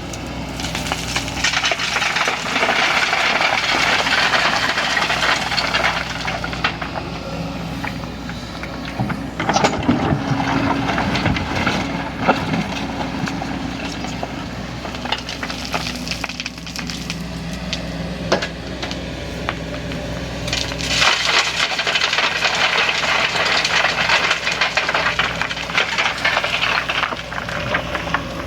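Kobelco excavator's diesel engine running steadily, with two long stretches of crackling, clattering noise and scattered sharp knocks and clanks of the machine working on the trailer.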